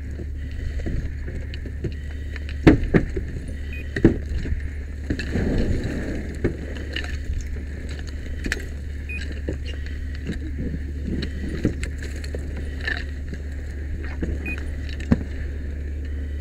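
Steady low drone of a running fire engine, under scattered knocks and metal clinks from firefighting tools and gear.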